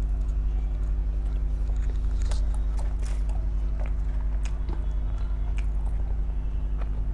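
A person chewing and biting food close to the microphone, with scattered wet mouth clicks, over a loud steady low electrical hum.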